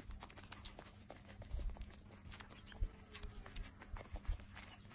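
A litter of puppies suckling from their mother: a busy, irregular run of small wet smacks and clicks, with a few louder low thumps.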